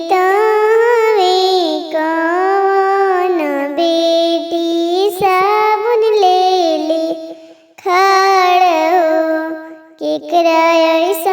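A high, young female voice sings a Bhojpuri wedding song (vivah geet) solo and unaccompanied, in long, drawn-out, ornamented phrases with short breaths between them.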